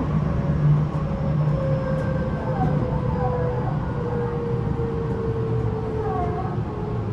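Tobu 9050 series EMU heard from inside its motor car: the Toyo GTO-VVVF inverter and traction motors give a tone that falls slowly in pitch over steady wheel-on-rail rumble, as the train slows. Two brief squeals come through about two and a half and six seconds in, and the air conditioning runs throughout.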